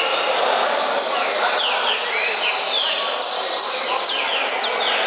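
Saffron finches (canário-da-terra) singing: a dense, unbroken run of quick, high notes, each sliding downward, over a steady background hubbub.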